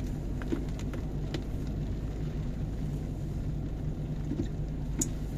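Car engine and wet-road tyre noise heard from inside the cabin of an automatic car climbing a hill: a steady low hum, with a few light ticks.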